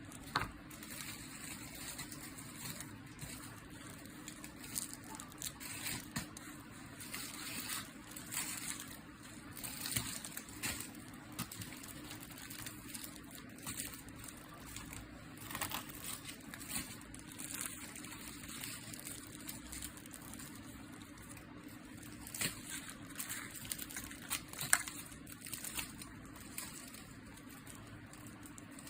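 Plastic packaging crinkling and rustling, with irregular small clicks and taps, as iPhone housings are handled and unpacked, over a steady low hum.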